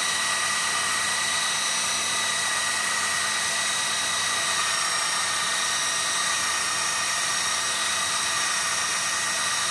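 Einhell TC-BS 8038 800-watt belt sander running steadily while a knife blade is held against its abrasive belt, grinding the edge: a constant hiss with a faint steady whine.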